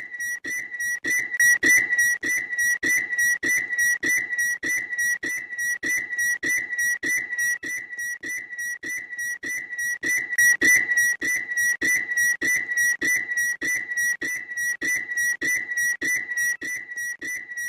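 Loud, shrill bird call: one high whistled note at an unchanging pitch, repeated rapidly about three times a second without pause.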